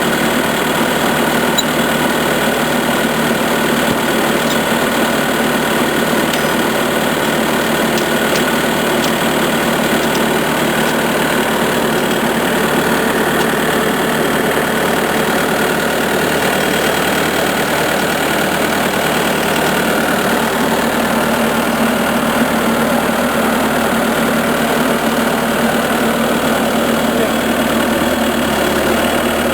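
Skid steer engine running steadily at an even level.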